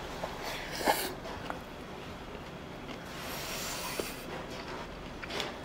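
A person eating a mukbang meal of rice with doenjang jjigae: chewing and breathing noises. There is a sharp utensil clink about a second in, a few lighter clicks later, and a breathy sniff-like hiss around the middle.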